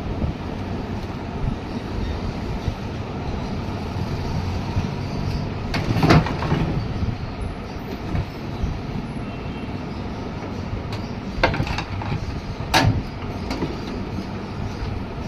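Steady rumbling background noise with a few sharp knocks: two close together about six seconds in, and two more near the end.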